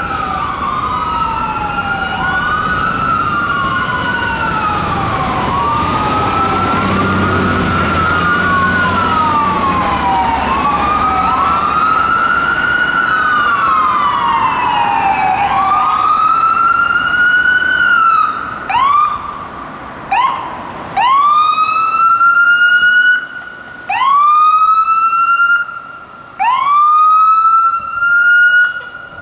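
A fire engine's siren sounding as it approaches. For the first half it is in a slow wail, rising and falling over and over. It then switches to short rising sweeps, each held briefly and cut off sharply, about every two seconds.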